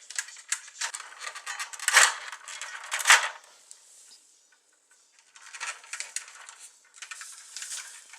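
Hard plastic parts of a 1983 G.I. Joe Skystriker toy jet being handled and fitted together: irregular clicks and rubbing scrapes, loudest twice around two and three seconds in, with more handling near the end.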